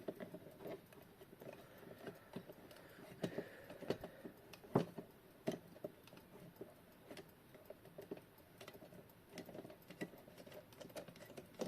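Irregular small clicks and taps from handling the quartz clock movement and its metal standoffs, the sharpest about halfway through.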